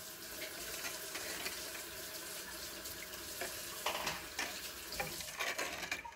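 Metal ladle stirring a thin coconut-milk and flour batter in a metal pot: the liquid swishes and sloshes steadily, and the ladle scrapes and knocks against the side of the pot a few times, mostly in the second half.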